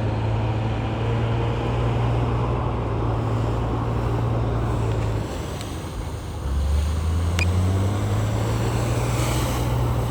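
Heavy diesel earthmoving machinery running steadily. About five seconds in the engine sound dips, then comes back lower and louder, with a brief rising note and a single sharp click.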